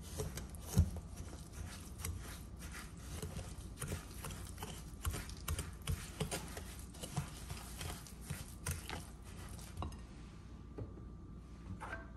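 Wire balloon whisk knocking and scraping against a glass mixing bowl as it stirs a thick, grainy batter, in an irregular run of clicks that dies away about ten seconds in.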